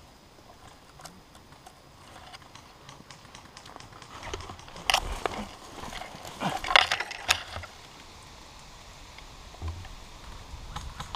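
Dry branches and brush rustling and crackling against the body and rifle as someone pushes through thick undergrowth. Twigs snap in louder bursts about five seconds in and again about a second and a half later.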